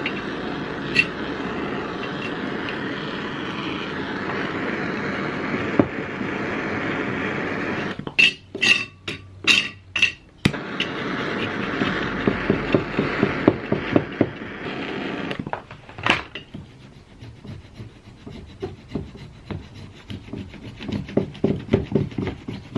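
Steady rubbing and rasping of a hand tool on metal hardware, broken by a quick run of sharp knocks about eight seconds in, then more rubbing with light, even ticks.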